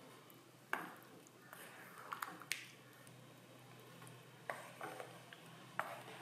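Wooden spatula stirring a thick curd-and-vegetable curry in a pan, knocking lightly against the pan about six times at uneven intervals.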